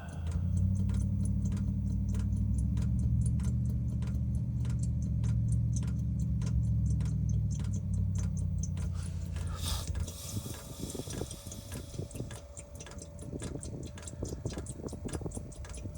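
Chinese diesel heater running through a restart: its fuel pump ticks at a steady pace over the low hum of the heater's fan and burner. The hum drops away after about ten seconds, with a brief hiss, while the pump keeps ticking. The heater is burning through its start-up after water in the fuel, still clearing itself.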